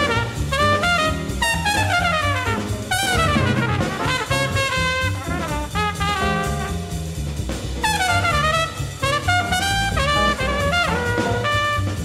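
Trumpet soloing in fast bebop runs of rapid notes sweeping up and down, over a jazz band's stepping bass line and drums.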